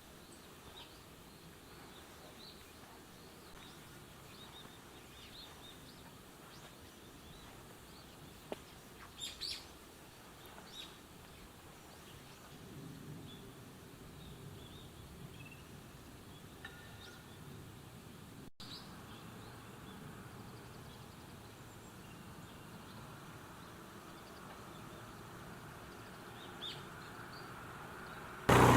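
Faint rural ambience with scattered short bird chirps and calls, a few of them louder about nine to ten seconds in. Right at the end a much louder steady noise cuts in suddenly.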